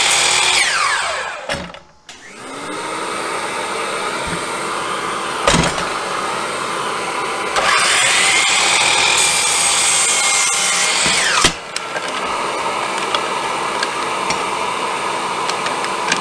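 Hercules sliding compound miter saw: the motor spins down over the first two seconds, is started again about seven seconds in while cutting through stacked wood boards, and is released with the blade winding down about eleven seconds in. A steady motor hum runs beneath, with a single knock about five seconds in.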